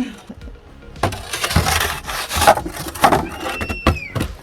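Snow shovel scraping and scooping fresh snow in a series of short, uneven strokes. A brief high squeak slides down in pitch near the end.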